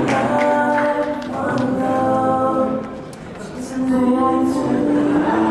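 Slow singing with long held notes, quieter briefly about halfway through.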